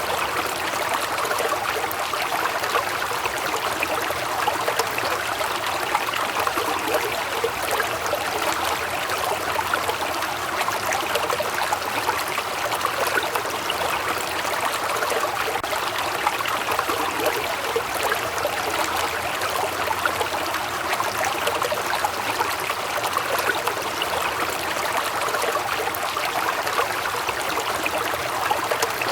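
Waterfall: falling water splashing and rushing in an even, unbroken noise with no pauses or changes.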